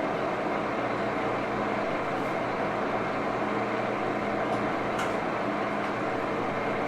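1941 Axelson gear-head engine lathe running steadily, its gearbox giving a constant low hum with a whirring drone over it; a single light tick about five seconds in.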